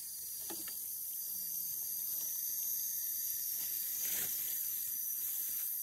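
Steady high-pitched hiss of woodland ambience, with a few faint short rustles about half a second in and again around four seconds.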